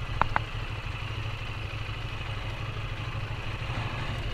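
QJ Motor SRT 800's parallel-twin engine idling with a steady low rumble. Two short high chirps sound near the start.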